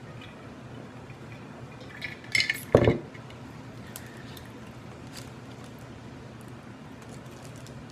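A brief clatter of tableware about two and a half seconds in, ending in a sharp knock, with a few faint clicks later over a steady low background hum.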